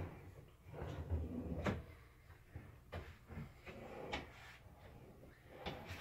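Soft-close IKEA kitchen cabinet drawers being pulled open and slid shut, with several light knocks and clicks and a low rumble of the runners.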